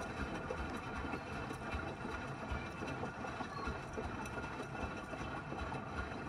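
Gorenje WA65205 front-loading washing machine in a wash cycle: the drum turning with its motor humming steadily, water sloshing in the drum, and irregular low thuds.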